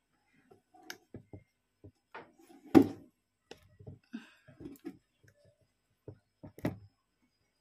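Scattered knocks, taps and rustles of a phone being handled and repositioned on a table, with one loud knock about three seconds in and another sharp one near the end.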